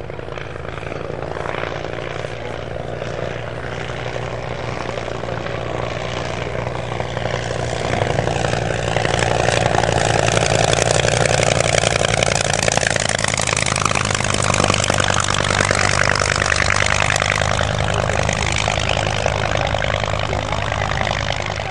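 Propeller engine of a vintage Avia B.H.-series light monoplane droning steadily in flight, growing louder about eight seconds in as the plane passes low over the field.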